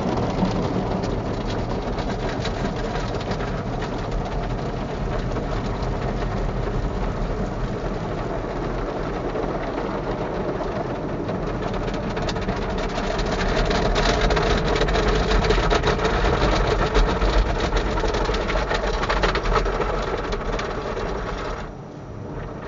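Automatic car wash heard from inside the car: the big wash brushes scrubbing over the windscreen and body, with water spray and the wash machinery running. It grows louder a little past halfway, then drops off sharply shortly before the end.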